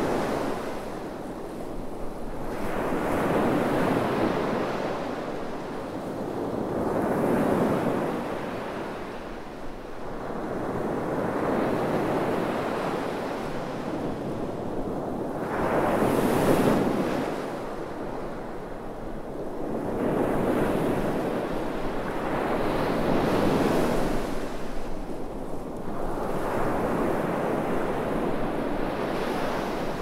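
Sea waves breaking and washing up a sandy beach, swelling and ebbing every three to four seconds. The loudest is a big wave crashing a little past halfway through.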